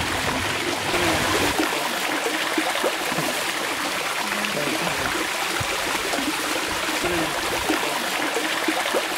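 Water running steadily, a continuous trickling rush without pauses.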